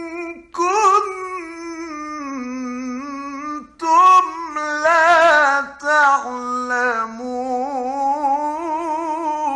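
A male Quran reciter chanting in a slow, melodic mujawwad style. He draws out long wavering notes with quick ornamental trills, breaking briefly for breath about half a second in and again just before four seconds in.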